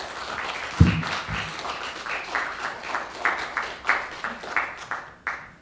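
Audience applauding, with one low thump about a second in. The applause stops near the end.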